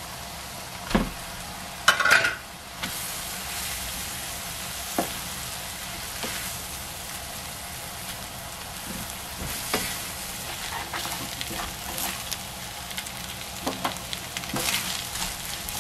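Shrimp, pineapple, vegetables and rice sizzling in a hot nonstick frying pan while being stirred and scraped with a spatula. There is a louder clatter about two seconds in, with lighter scrapes and taps after it.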